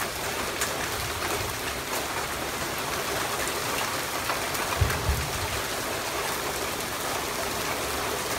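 Steady rain, an even hiss with scattered sharp drop taps. There is one brief low thump about five seconds in.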